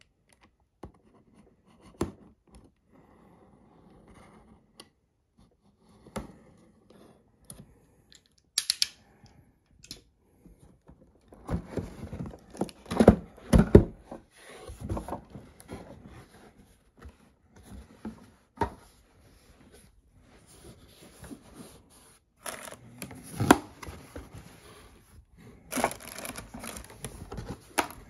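Packaging being handled and torn open: scattered clicks at first, then bouts of tearing and crinkling with sharp knocks, busiest about halfway through and again near the end.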